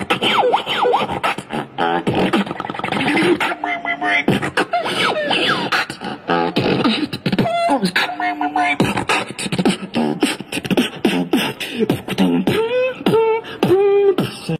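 Beatboxing into a handheld microphone: rapid clicks and drum-like hits mixed with held and sliding sung tones, one phrase coming round again partway through.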